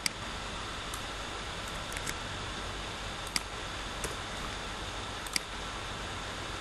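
Computer mouse clicking: a handful of sharp single clicks, with a close pair about two seconds in, over a steady hiss.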